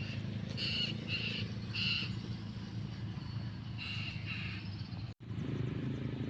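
A bird calling five times in short calls, three close together and then two more, over a steady low hum. The audio cuts out for an instant near the end, and a different low hum follows.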